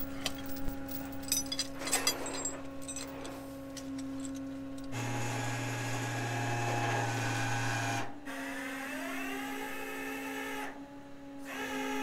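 A winch motor is running under load, pulling on a large rock. Its whine rises in pitch and then holds, cuts out briefly near the end, and starts again. A steady low hum runs underneath, with a few clicks in the first seconds.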